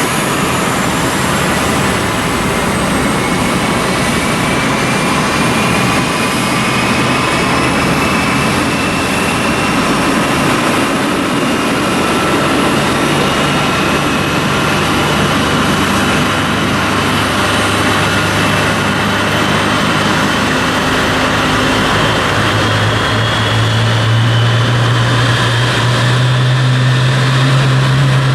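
GE90-115B turbofan of a Boeing 777-300ER spooling up. Its whine rises slowly and steadily in pitch over a loud rush, and a deep hum swells about three-quarters of the way through.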